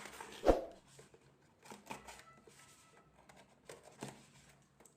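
A parcel's packaging being handled and opened by hand: scattered rustling and crinkling, with one loud thump about half a second in.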